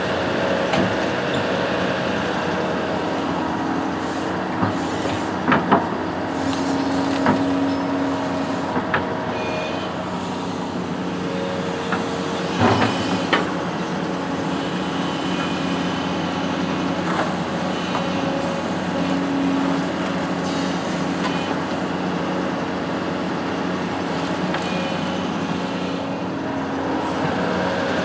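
Diesel engine of a construction machine running steadily, with a few sharp metallic knocks about five and a half seconds in and again around thirteen seconds.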